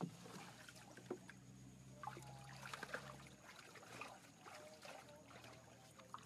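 Faint water trickling and splashing as hands work in the water beside a wooden fishing boat, with two sharp knocks, one at the start and one about a second in.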